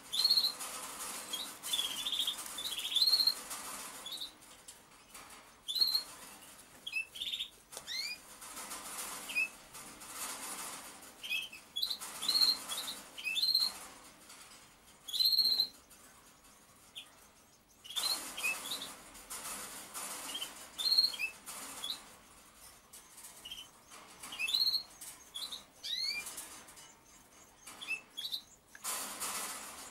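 Birds giving short, high chirps and squeaks every second or so. Under them a small spoon scrapes and rustles as it packs moist rearing feed into a plastic syringe.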